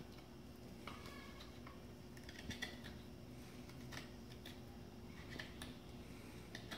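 Faint scrapes and small clicks of a Mora hook knife cutting into a wooden spoon blank as the bowl is hollowed out, several short cuts at irregular intervals.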